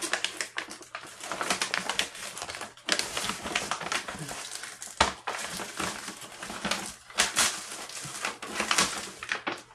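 Brown kraft paper bag crinkling and rustling as hands pull it off a potted plant, in a continuous run of crackles with a sharper crack about five seconds in.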